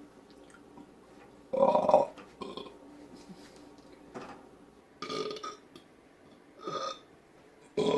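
A person belching loudly once, about a second and a half in, for about half a second, followed by a few shorter, quieter sounds.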